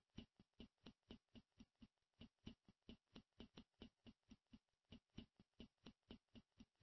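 Near silence with faint, even ticking, about four ticks a second.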